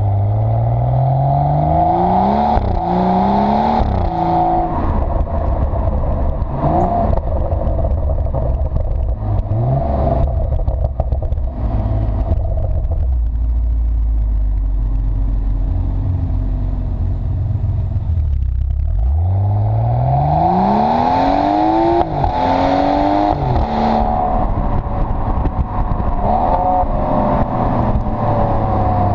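BMW 640i (F12) turbocharged straight-six through an M Performance exhaust, accelerating hard with its pitch climbing and dropping back at each upshift. It eases to a lower, steadier drone in the middle, then pulls hard again about two-thirds of the way through, with more upshifts.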